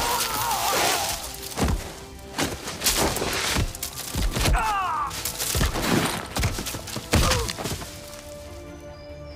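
Film soundtrack of a man tumbling down a steep wooded slope: a run of heavy thuds and crashes as his body hits the ground, with pained cries, over music. It settles to a quiet held music tone near the end as he comes to rest.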